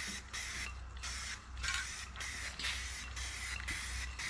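Aerosol can of anti-silicone degreaser with a trigger handle, sprayed in short repeated hissing bursts, about two a second, onto an engine oil pan to strip oily handprints before painting.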